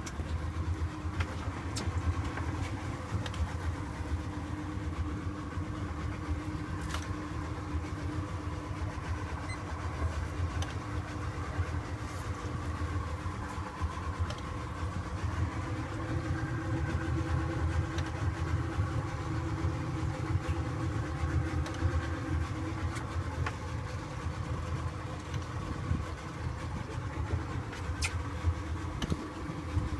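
Center-console boat's engine running steadily at low speed, heard on board, with a few sharp knocks.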